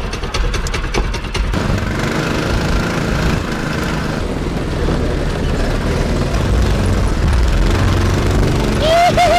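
Engine of a homemade off-road monster truck running steadily as it drives over a rough field, with clicks and rattles in the first second and a half. A short shout comes right at the end.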